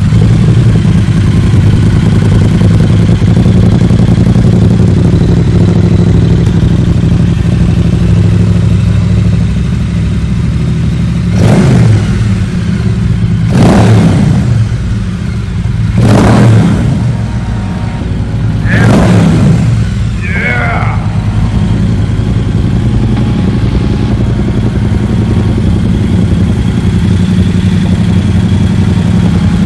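2018 Triumph Bobber's 1200 cc parallel-twin engine idling through newly fitted Vance & Hines slip-on mufflers. Past the middle it is revved four times, about two to three seconds apart, each rev rising and dropping back to idle.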